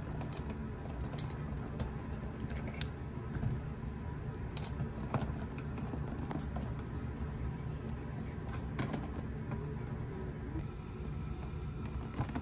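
Fingers picking and scratching at the seal of a toy's cardboard packaging box, making irregular small clicks and taps.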